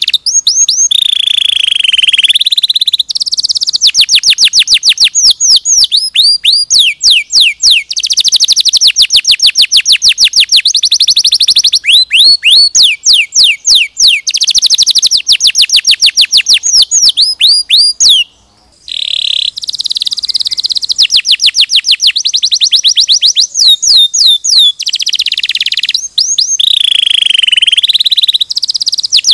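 Domestic canary singing a loud, clear song of fast repeated trills and sweeping whistled notes, with one short break about eighteen seconds in.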